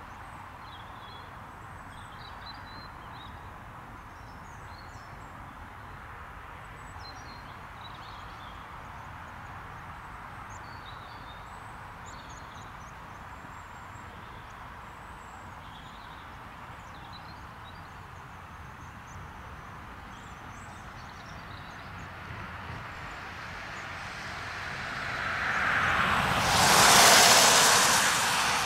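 Cessna Citation 525 business jet on final approach, its twin Williams FJ44 turbofans giving a faint steady jet hiss that swells over the last several seconds to its loudest as the jet reaches the runway to land.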